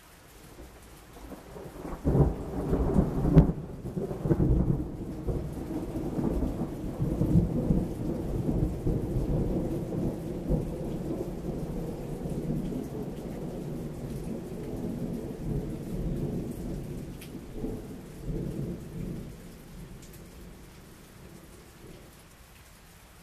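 A long peal of thunder over steady rain. It builds about a second in and is loudest around three seconds in. It then rumbles on for about fifteen seconds and dies away near the end.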